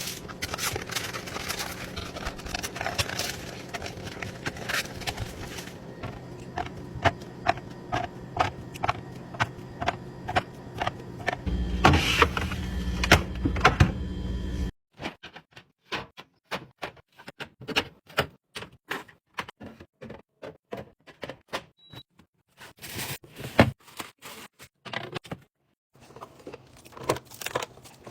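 Containers and food items being handled and set down in a fridge: a long run of sharp clicks, taps and knocks, over a steady low hum in the first half. About halfway through the hum stops abruptly and the clicks and taps come one by one, with short gaps between them.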